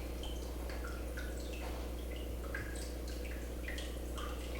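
Water dripping in short, scattered plinks over a steady low hum.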